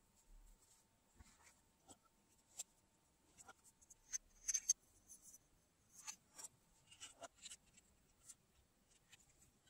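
Faint handling noises of a Feiyutech WG2 gimbal's black plastic housing being turned and worked apart by hand: scattered small clicks, taps and scrapes on a wooden desk, with a brief rattling scrape about four and a half seconds in.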